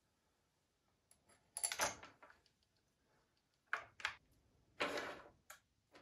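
New saw chain rattling and clinking in a few short bursts as it is handled onto the chainsaw's drive sprocket and around the guide bar, with small clicks between.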